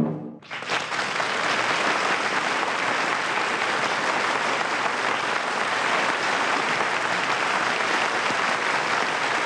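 Studio audience applauding steadily, rising in about half a second just as a closing orchestral chord cuts off.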